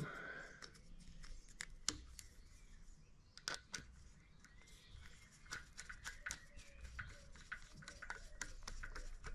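Screwdriver turning a screw into a Quad Lock phone mount: faint scattered clicks and scrapes of metal on plastic, coming more often in the second half.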